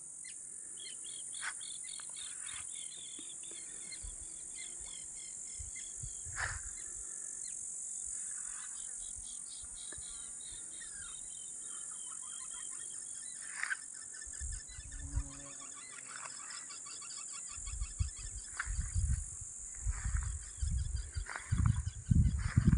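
Steady high chirring of insects such as crickets, with birds chirping and trilling over it. From about three-quarters of the way through, wind buffets the microphone in low gusts.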